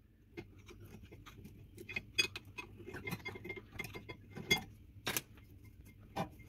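Mazda CX-7 rear brake pads being prised out of the caliper bracket with a flat-blade screwdriver and pulled free by hand: a run of small metallic clicks and scrapes, with a few sharper clinks in the second half.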